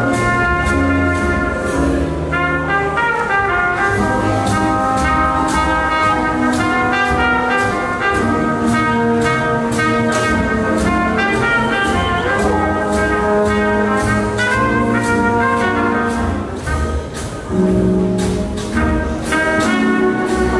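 Live swing jazz band playing, with trumpet and trombone lines over piano, double bass and drums keeping a steady beat.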